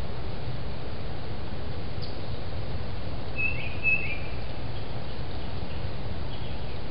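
Steady low background noise, with a bird giving two short high chirps about half a second apart around the middle.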